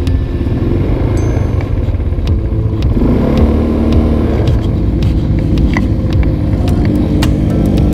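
ATV engine running under throttle while riding a rough dirt trail, its pitch shifting about three seconds in as the revs change. Scattered sharp clicks and knocks from the machine jolting over the ground run through it.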